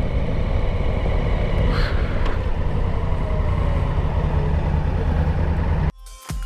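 Honda Africa Twin's parallel-twin engine running steadily under way, mixed with wind rumble on the helmet microphone. Near the end it cuts off and electronic music with a beat begins.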